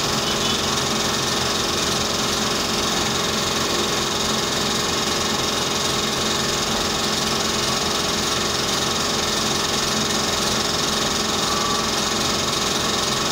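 Dental equipment motor running steadily during root canal treatment: a continuous mechanical whir with a high whine over it.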